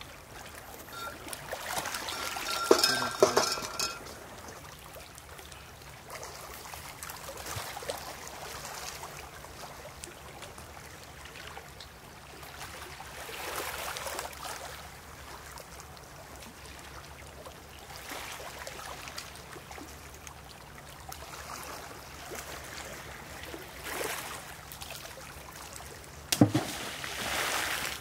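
Small sea waves washing against a stony shore, rising and falling every few seconds. A brief clinking comes about three seconds in, and a single sudden hit near the end.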